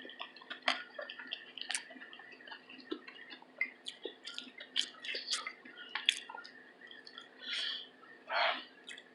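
Close-miked chewing: a stream of short wet mouth clicks and smacks, with two short hissy sounds near the end, over a faint steady hum.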